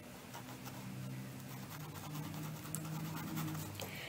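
Faint scratchy strokes of a paintbrush dragged over fabric, blending acrylic paint, over a low faint hum.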